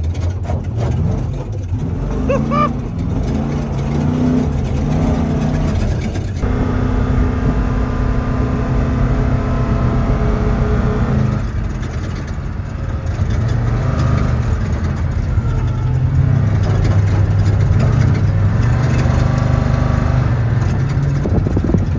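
Prerunner truck's engine running while driving at speed, heard from inside the cab over road and wind noise. The engine note holds steady for several seconds at a time and steps up and down in pitch, and the sound changes abruptly about six seconds in.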